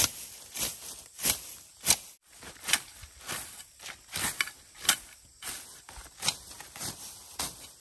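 A hand-held blade slashing through weeds and grass, a steady run of short cutting swipes about one and a half to two a second.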